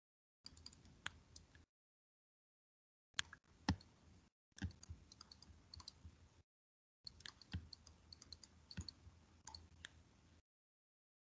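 Faint scattered clicks and taps from handwriting on a digital whiteboard. They come in a few short stretches that cut in and out abruptly, with near silence between.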